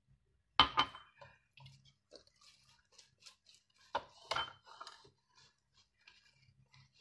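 A soapy mesh scrubber squeezed and rubbed between the hands, giving faint wet crackling squelches as coconut-oil liquid soap is worked into a lather. Two short clattering knocks of dishware, about half a second in and about four seconds in, are the loudest sounds.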